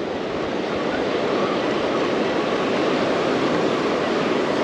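Surf washing onto a sandy beach: a steady rush of waves.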